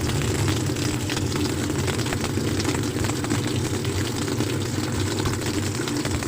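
LG top-load washing machine running with a steady low motor hum, with a few faint clicks over it.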